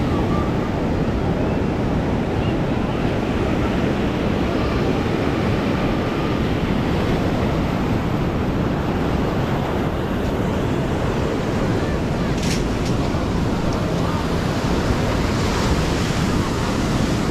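Ocean surf washing onto a sandy beach in a steady, dense rush of noise, mixed with wind buffeting the microphone.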